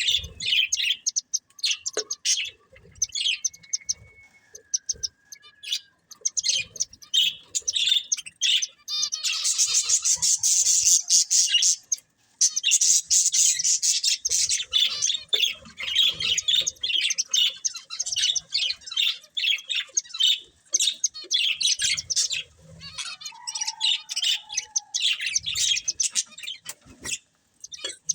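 A pair of budgerigars chattering: rapid high chirps and warbles almost without a break, with a couple of brief pauses.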